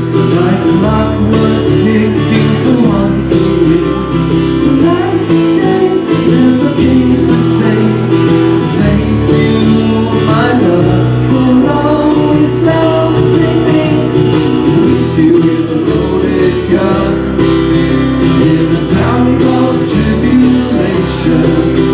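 Live acoustic rock band playing: two strummed acoustic guitars with keyboard and a sung vocal.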